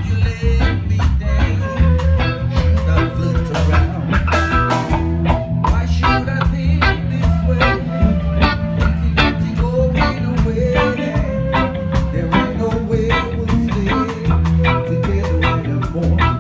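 Live band music: a flute playing the melody over electric guitar and a drum kit, with a steady beat.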